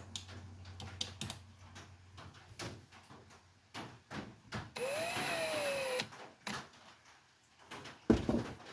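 Small clicks and taps of tools and parts being handled while a new ignition coil is fitted to a Stihl MS311 chainsaw. About five seconds in there is a brief whine lasting about a second that rises and then falls in pitch, and a sharp knock comes near the end.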